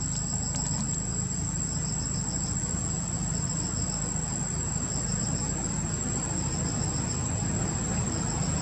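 Steady high-pitched buzzing of insects in the trees, with a softer pulsing layer beneath it, over a steady low rumble.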